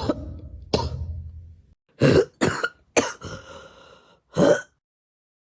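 A person coughing: six short, sharp coughs spread over about four and a half seconds, then quiet.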